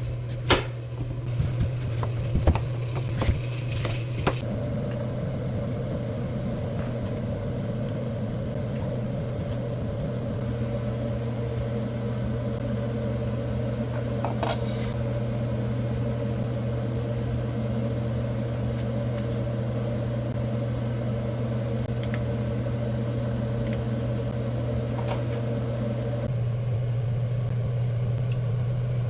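Steady electric hum of a running kitchen appliance, with several clinks of dishes in the first few seconds and a few fainter clicks later.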